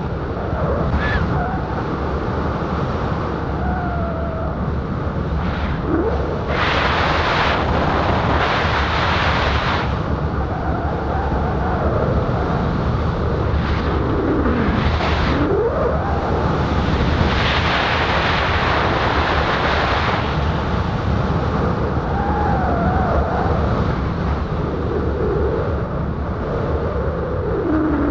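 Wind rushing over the camera microphone of a speed wing pilot in fast flight at about 50–65 km/h, swelling louder from about six to ten seconds in and again around seventeen to twenty seconds. Faint wavering whistles rise and fall through the rush.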